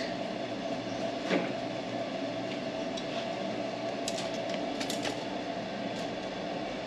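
A steady mechanical drone, like a shop fan or air conditioner running, with a few light clicks and taps of parts being handled.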